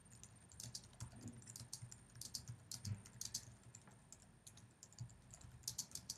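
Faint computer keyboard typing: a quick, irregular run of key clicks as a sentence is typed out.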